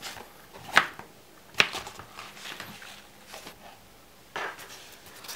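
Hands handling a small folding speedlite softbox and its packaging: a few sharp clicks and taps, then a short rustle a little over four seconds in.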